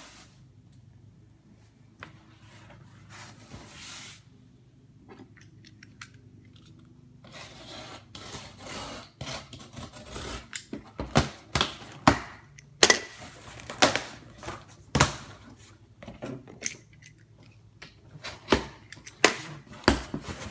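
A cardboard shipping box being opened: a box cutter scraping along the taped seam, then a run of sharp cracks and knocks as the cardboard and its flaps are handled, loudest in the second half.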